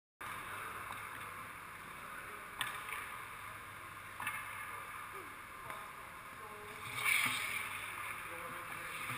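Indoor ice rink ambience picked up by an action camera sitting on the ice: a steady hiss, with two sharp taps a few seconds in and a louder swish about seven seconds in.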